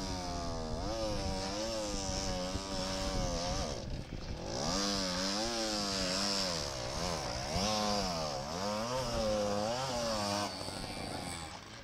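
Small two-stroke motorcycle engine revved up and down over and over, its pitch rising and falling with each blip. It eases off briefly about four seconds in, then revs again and drops back near the end.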